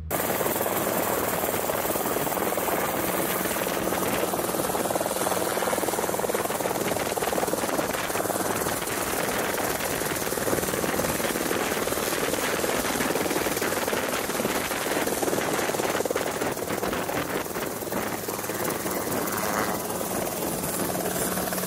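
Two-seat tandem light helicopter (the Ranabot version of the Kompress) running close by with its rotor turning and hovering low: a steady rotor and engine noise, with the rotor downwash blowing across the microphone.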